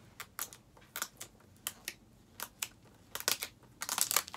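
Plastic shrink wrap crinkling and tearing as it is peeled off a Blu-ray case: irregular crackles, coming thickest and loudest near the end.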